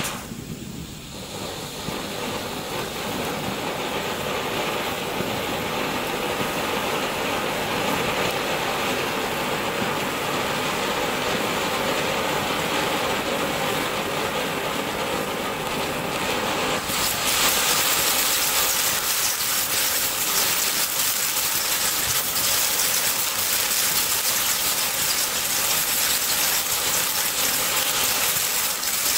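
Ground fountain firework spraying sparks with a steady loud hiss. About halfway through it turns louder and brighter, with fine crackling over the hiss.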